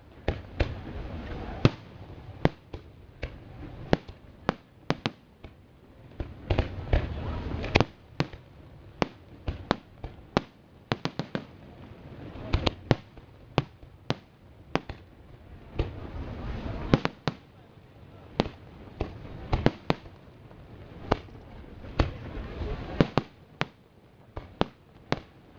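Aerial fireworks display: a long irregular string of sharp bangs from bursting shells, at times several a second. Between the bangs are swells of low, rumbling noise that rise and fall.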